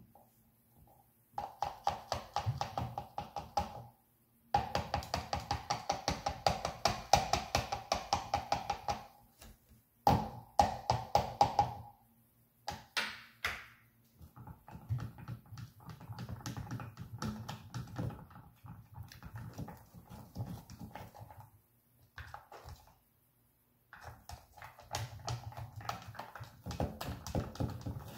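A stick stirring a thick mix of glue, baking soda and paint in a plastic tub: rhythmic scraping and tapping against the tub's sides, several strokes a second. It comes in runs of a few seconds broken by short pauses.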